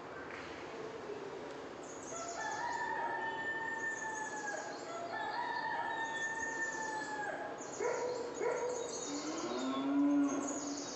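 Recorded rooster crowing twice in long drawn-out crows, with light bird chirps around it, played through a TV's speakers. Near the end come a few lower animal calls.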